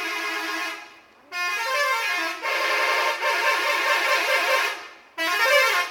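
Telolet multi-tone musical air horn on a Satria Muda coach bus playing its tune. A steady chord stops about a second in, a longer run of changing notes follows, and another blast starts just before the end.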